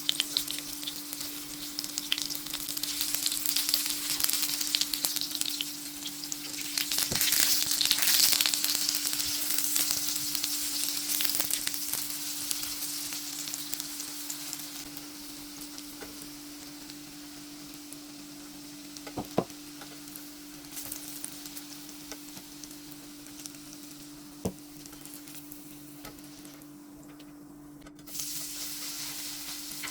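Food sizzling in a frying pan, loudest in the first half and easing later, with a few sharp knocks of a utensil against the pan and a steady low hum beneath.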